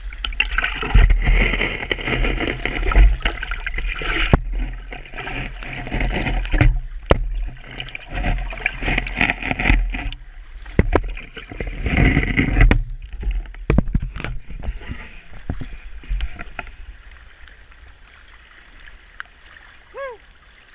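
Rushing stream water mixed with loud rustling, knocks and bumps from the camera being handled and moved about for the first dozen seconds or so, then a steadier rush of the river. A brief falling tone sounds near the end.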